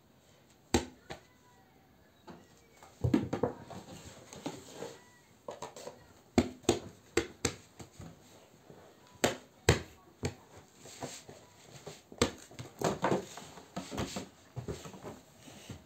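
Handling noise: a string of irregular sharp knocks and taps with short bits of rustling, as a small plastic slime tub and a cardboard tissue box are picked up, set down and slid across a sheet of paper.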